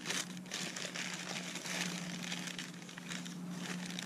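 Newspaper crinkling and rustling continuously, with many small crackles, as it is pulled open by hand to unwrap a glass bottle.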